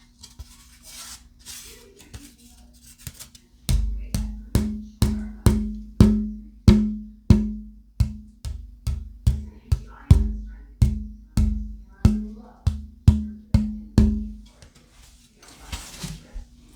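Old-growth Adirondack spruce guitar top blank tapped about twenty times, roughly two taps a second, each a short knock that rings with a low tone. This is a luthier's tap-tone test of the wood's stiffness and resonance.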